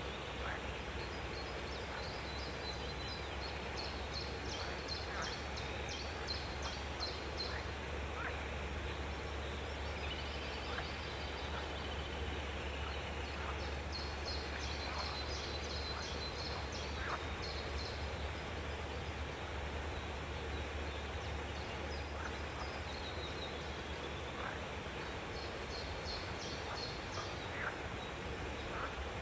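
Captive exotic birds calling in an aviary: several runs of rapid, high pulsed chatter, with scattered short chirps in between. A steady low hum runs underneath.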